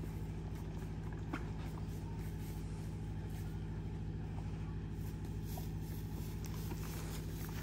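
An engine running steadily at a constant speed, giving a low, even hum, with a few faint clicks.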